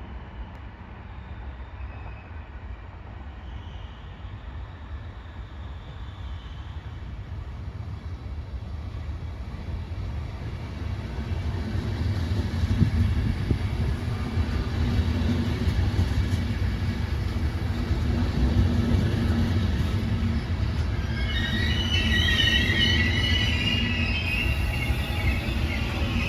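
Train rolling into a station: a low rumble that grows louder about ten seconds in, then the wheels squeal in several high tones over the last few seconds as it slows.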